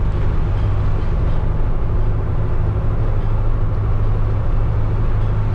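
Steady engine and road noise of a converted micro-bus motorhome on the move: a constant low drone.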